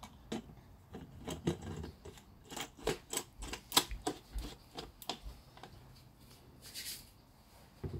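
A plastic blender jar being handled and its black blade cap twisted on: a run of irregular sharp clicks and knocks, then a brief hiss near the end.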